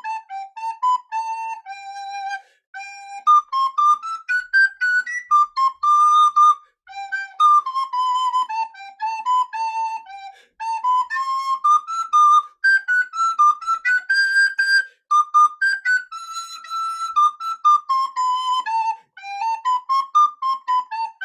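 Recorder playing a quick melody of short, separately tongued notes, pausing briefly for breath every few seconds.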